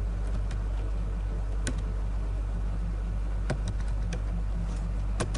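Scattered keystrokes on a computer keyboard, a handful of separate clicks a second or so apart, over a steady low electrical hum.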